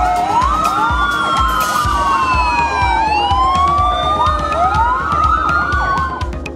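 Fire engine sirens wailing, several at once, their pitch rising and falling, with a quicker yelping siren among them; they stop shortly before the end. A steady drum beat of background music runs underneath.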